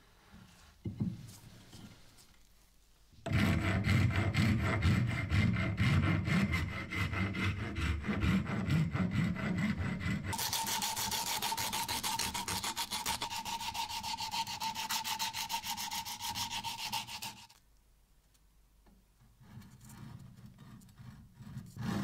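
Sandpaper rubbed by hand over the end of a new ash hammer handle, in fast back-and-forth strokes. It comes in two long spells, the second brighter and hissier, with a short quiet gap before faint strokes start again near the end.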